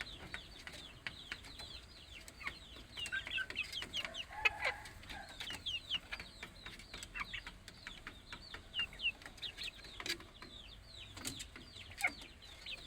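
Village chickens, with chicks peeping in many quick, falling cheeps, several a second. A lower cluck comes about four seconds in, and a few sharp taps come near the end.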